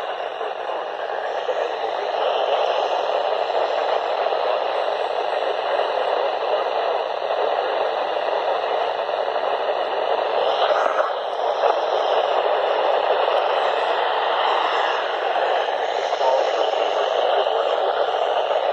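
Weather radio receiver giving a steady static hiss, the broadcast signal too weak to come through clearly.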